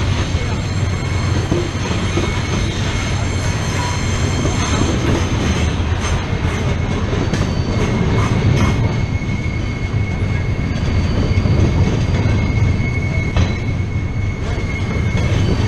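Freight train rolling past close by: a steady rumble and clatter of steel wheels on rail as covered hopper cars and double-stack container well cars go by. A thin high wheel squeal sounds through it, strongest in the second half.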